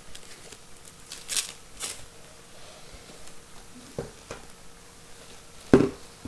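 Plastic bag and foam wrap crinkling as a computer speaker is pulled out of its packaging, with a few light knocks and one louder thump near the end.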